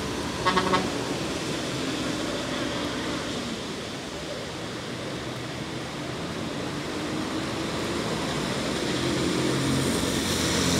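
Steady hiss of heavy rain on a wet road. The engine of an approaching bus, with a motorcycle ahead of it, grows louder toward the end. A brief tone sounds about half a second in.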